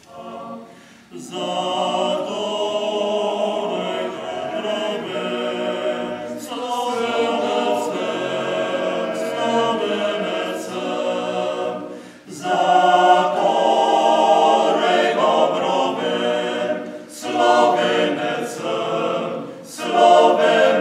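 Men's choir singing a cappella, starting about a second in, in phrases with short pauses between them.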